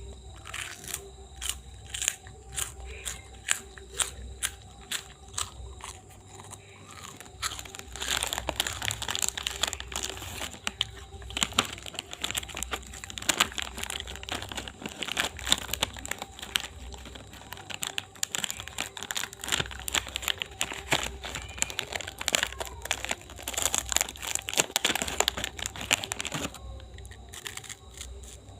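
Massage hands rubbing and pressing on skin, making a run of crackles and friction clicks. The clicks are scattered at first, become dense and busy about a third of the way in, and stop shortly before the end.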